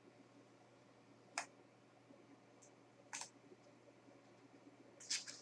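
A few faint, sharp clicks from handling Blu-ray packaging: one about a second and a half in, another about three seconds in, and a quick run of clicks near the end, over a quiet low hum.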